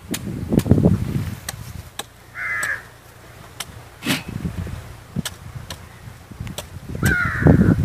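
A crow caws twice, once about two and a half seconds in and again near the end, over repeated sharp chops of a blade hacking into the husks of green coconuts.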